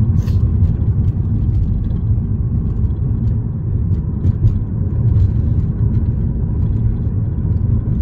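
Steady low rumble of a car driving, engine and tyre road noise heard from inside the cabin.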